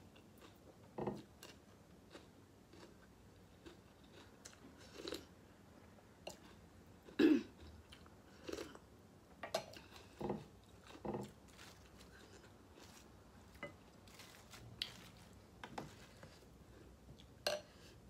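A person eating pho noodle soup: chewing, with short mouth and eating noises at irregular intervals, the loudest about seven seconds in.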